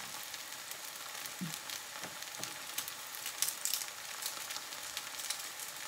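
Vegetables frying in oil in a frying pan, a steady sizzle, with a few light clicks about halfway through.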